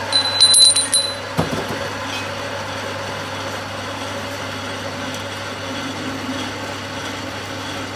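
Metal lathe running steadily with a low motor hum as its cutting tool turns a spinning metal workpiece in the chuck. A brief high-pitched squeal with a few clicks comes in the first second, then a single knock.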